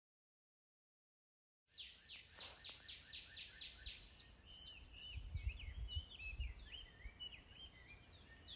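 Silence for the first second and a half, then faint birdsong: a run of short repeated high notes at about three a second, followed by varied chirps and twittering, over a steady high thin tone and some low rumble.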